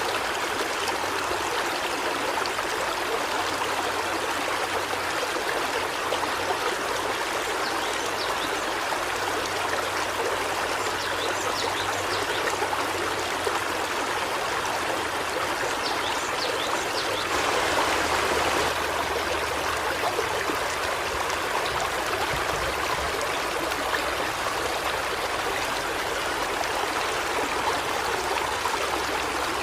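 River stream flowing steadily over rocks, a continuous rushing and trickling that swells briefly a little after halfway.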